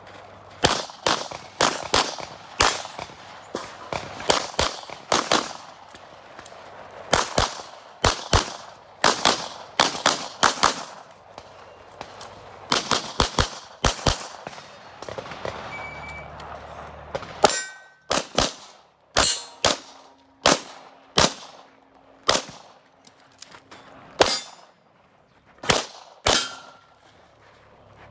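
Pistol shots fired in quick pairs and strings, some followed by the clang of steel targets ringing as they are hit.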